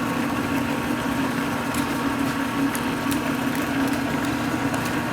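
Steady electric motor hum from an industrial bartack sewing machine's motor running with the machine not stitching, with a few faint ticks.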